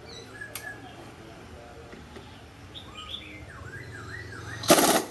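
Small birds chirping with short rising and falling calls, then a loud, sudden burst of rattling noise near the end.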